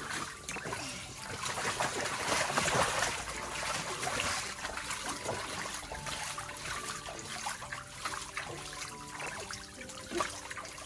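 Water splashing and spraying in a children's sprinkler pool, its rim jets hissing while children splash in it, with heavier splashing about two to four seconds in. Soft background music plays underneath.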